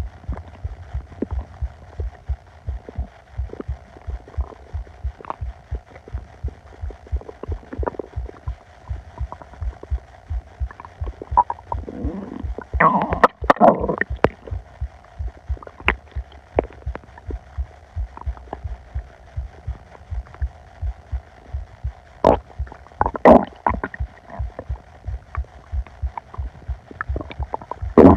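Upset stomach growling and gurgling over a steady, fast pulse of low thuds. The loudest gurgles come about halfway through and again about three quarters of the way in.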